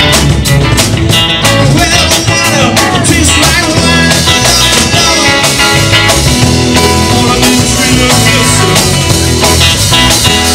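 Rock music from a full band: drums keeping a steady beat under bass and electric guitar.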